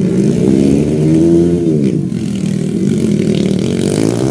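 Dirt flat-track racing motorcycles revving hard. The engine pitch climbs for about a second and a half, drops about two seconds in, then climbs again.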